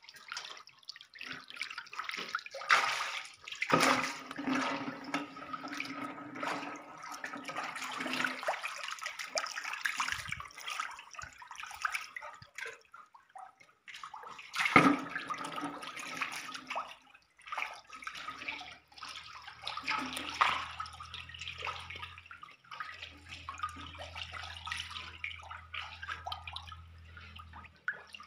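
Water sloshing and splashing as fish thrash in very shallow muddy water, with sharper splashes about 3, 4 and 15 seconds in. A low steady hum joins in over the last ten seconds, dropping out briefly about two-thirds of the way through.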